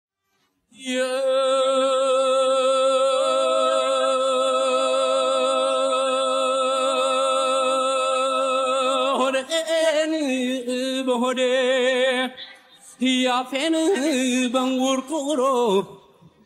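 Unaccompanied male voice singing: one long held note with a steady vibrato for about eight seconds, then a run of winding, ornamented phrases with a short break partway through.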